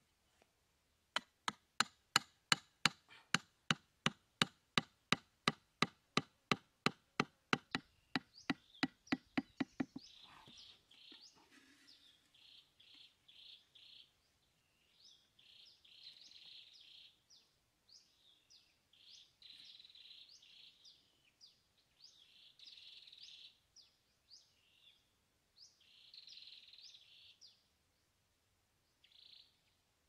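A rapid run of sharp, evenly spaced knocks, about four a second, lasting about nine seconds and growing fainter toward the end. High, short chirping calls follow in repeated clusters.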